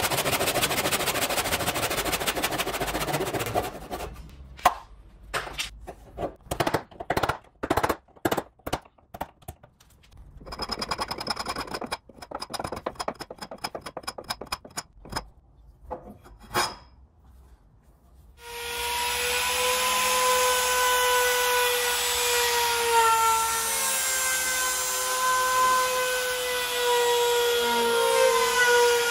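A steady rasping noise for the first few seconds, then a run of sharp knocks of wood struck on wood, spaced at first and coming faster in a burst, then a short pause. About 18 seconds in, a handheld trim router starts and runs steadily with a whine, trimming the edge of a zelkova slab tabletop, its pitch dipping slightly as the bit takes the cut.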